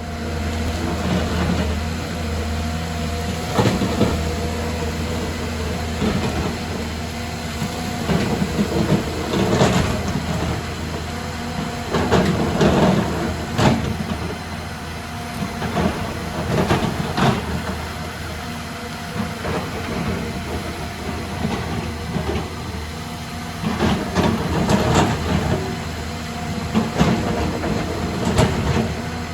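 Excavator's diesel engine running steadily, with irregular clanks and knocks every few seconds as the machine works.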